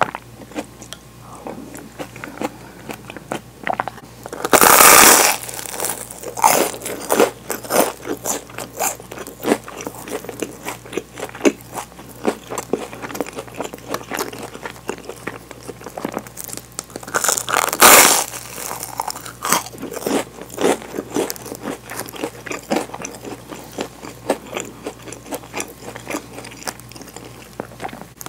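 Close-miked bites into a crisp toasted cheese sandwich: two loud crunches, about five seconds in and again about eighteen seconds in, with chewing and crumbly crackles between.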